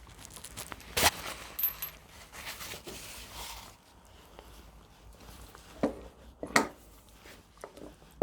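Scattered metallic clinks and knocks, with a sharp knock about a second in and two more near the end, as a car starter motor is handled against the engine.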